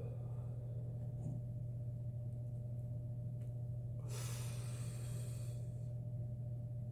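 A person's breath, a hissy rush lasting about a second and a half, about four seconds in. A steady low electrical hum runs underneath.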